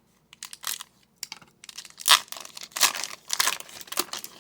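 Wrapper of a trading-card pack crinkling and tearing as it is handled and opened, in a series of short rustles, the loudest about two seconds in.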